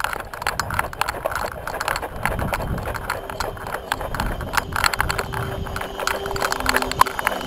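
Footsteps of a paintball player running on grass, with loose kit and marker rattling in a rhythmic clatter close to the microphone.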